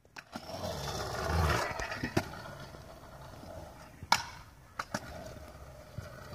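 Stunt scooter wheels rolling on concrete, a rumble that swells over the first second or so. Then several sharp clacks as the scooter hits the concrete.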